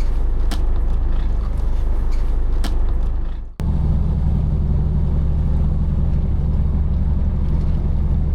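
Fishing boat's inboard engine running with a steady low drone. A few sharp clicks sound in the first three seconds, and about three and a half seconds in the sound cuts to a steadier, deeper engine note.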